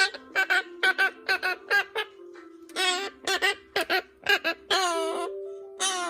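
Quaker parrot (monk parakeet) giving a quick run of short, pitched squawks, several a second, with two longer drawn-out calls about three and five seconds in. Low held notes of background music sound underneath.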